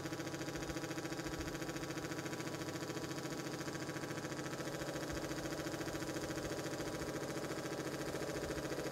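Small portable air compressor running steadily with a fast, even pulsing beat as it fills its tank after being plugged in.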